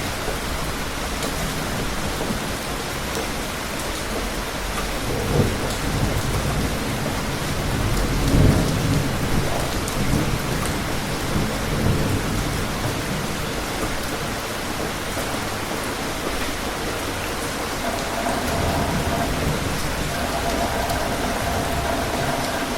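Steady rain with distant thunder rumbling several times, the strongest roll about eight seconds in. A faint steady hum joins the rain near the end.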